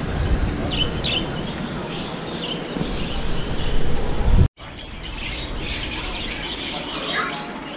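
A low rumble with a few faint chirps, then a sudden break about halfway through, after which many small caged birds chirp and tweet in quick, overlapping calls.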